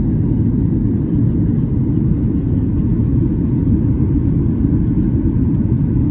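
Cabin noise of a Boeing 737-800 in its climb after takeoff: the CFM56-7B engines and the airflow make a steady low rumble.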